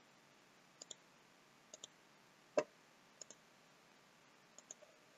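Computer mouse buttons clicking: four quick double-clicks and one louder single click, sharp and short over faint background hiss.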